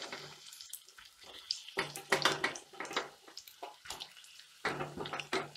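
Sliced onions dropped into hot oil in a metal kadai, sizzling and hissing, with small clicks and clatters as the handfuls land in the pan.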